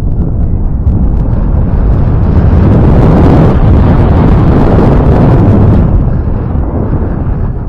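Wind buffeting the camera's microphone in a strong gust, a loud rumbling rush that builds to a peak mid-way and eases off near the end.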